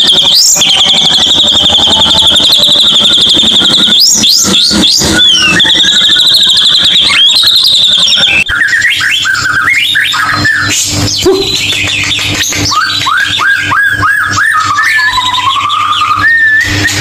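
Recorded white-rumped shama song of the kind played as a lure to get a shama that has stopped singing to sing again. It opens with a long high trill broken by a few sharp calls. An abrupt change comes about eight and a half seconds in, followed by a quick run of sliding whistled notes and a longer rising whistle near the end.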